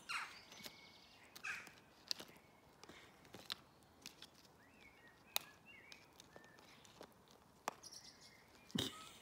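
Plastic plant pots knocking and scraping on gravel as puppies carry and mouth them: scattered sharp clicks with a few brief scrapes, the loudest near the end.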